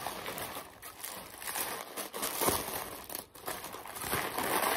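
Packing wrap crinkling and rustling in irregular handfuls as a wrapped item is unwrapped by hand, loudest about two and a half seconds in.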